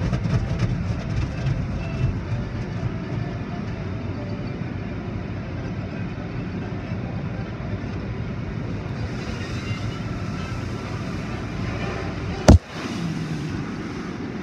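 Automatic car wash heard from inside the car's cabin: water spray and wash equipment working over the car make a steady rushing noise. Near the end there is one sharp knock, the loudest sound.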